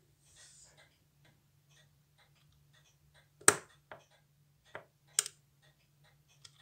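Sharp small metal clicks as a mainspring inserting tool is pressed onto a watch's mainspring barrel to push the spring in: one loud click about halfway through, a couple of fainter ones, then a close pair of sharp clicks about a second and a half later.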